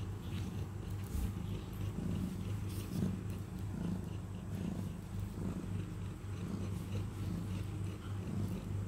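Black-and-white cat purring while being stroked: a steady low rumble that pulses in a regular rhythm.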